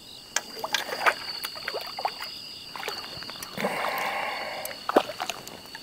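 Water splashing and sloshing as a hooked crucian carp is played and landed on a fishing pole, with scattered sharp clicks and a longer splash about four seconds in. Insects trill steadily behind.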